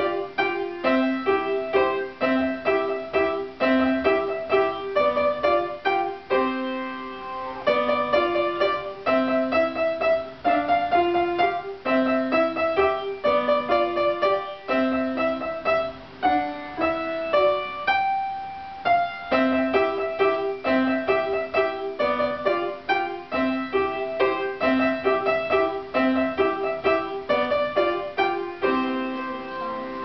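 Upright piano being played: a piece of quick, evenly repeated notes in short phrases, broken by a few brief pauses.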